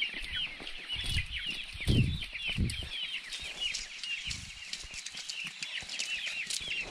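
A crowd of baby chicks peeping without a break from their carrying crates: many short, high cheeps that fall in pitch. A few low thumps come in the first few seconds, the loudest about two seconds in.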